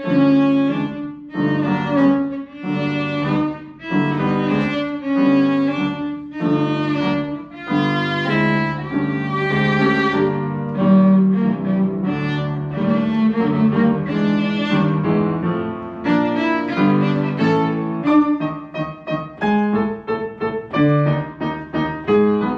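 Cello and piano playing a march: the cello bows short, separated notes in a steady rhythm over piano accompaniment.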